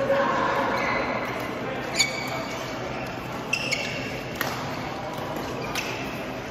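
Badminton rally: rackets striking a shuttlecock with sharp pings, about five hits, the loudest about two seconds in, with some brief squeaks and a background murmur of voices echoing in a large sports hall.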